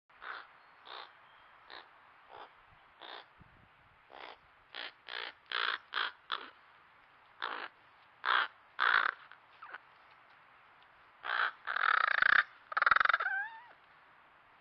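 American crows cawing: a run of short harsh caws that gets louder, then two long, loud rasping calls near the end, the last trailing off in a wavering, falling warble.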